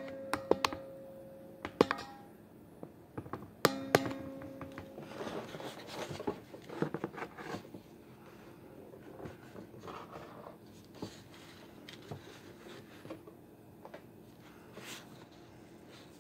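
Hard plastic figure being handled and posed. There are a few sharp knocks in the first four seconds, two of them ringing briefly, then softer handling and rustling.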